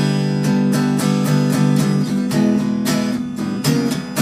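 Fender Jazzmaster HH electric guitar on a clean sound, its neck humbucker split to single coil, strumming chords in quick repeated strokes, several a second.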